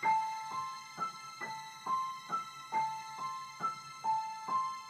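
Background music: a simple keyboard melody of evenly spaced struck notes, about two a second, each ringing briefly and repeating the same short pattern.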